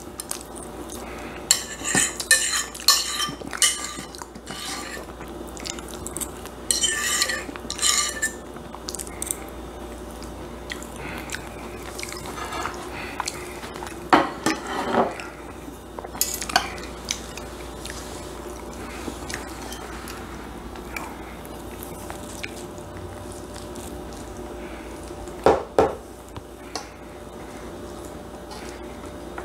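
Metal utensils clinking and scraping against a plate and a stainless steel pan of shepherd's pie, in short spells of clatter with a few louder knocks, as food is served out with a spatula.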